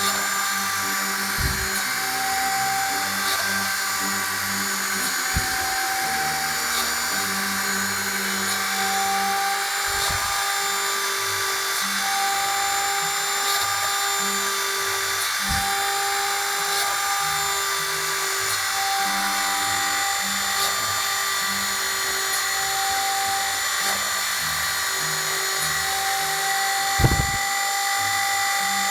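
Small hobby rotary tool with a 1 mm drill bit spinning at high speed with a steady whine, mounted on a homemade CNC PCB drilling machine. Short motor tones come and go about every two seconds, and there are a few brief low thumps.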